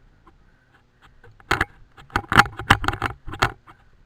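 Loose gear rattling near the helmet camera: after a quiet second, a run of sharp, irregular clicks and clatters for about two seconds.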